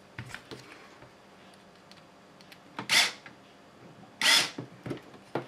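Cordless electric screwdriver run in two short bursts about a second apart, driving small screws into plastic. A few light clicks of small plastic parts being handled come first.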